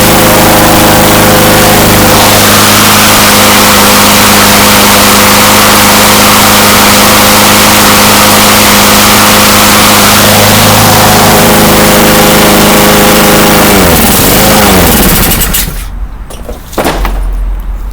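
Craftsman push mower's Honda engine running steadily and loud, still running good after sitting in the rain. About fourteen seconds in it is shut off, its pitch falling as it coasts down and stops, and a single thump follows near the end.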